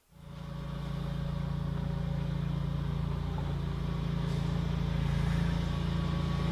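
A steady, engine-like low drone with a few fixed low pitches. It starts suddenly and slowly grows louder.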